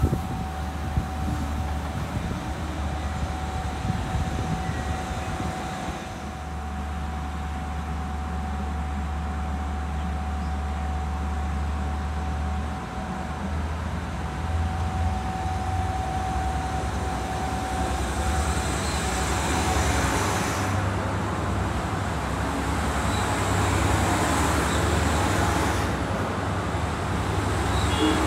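Diesel passenger train's engine running steadily, a low hum with a thin steady whine over it. The sound grows a little louder and noisier in the last third.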